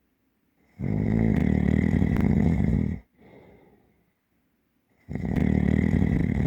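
A person snoring deeply and heavily: two long, rattling snores, each about two seconds, about four seconds apart. A soft breath out follows the first.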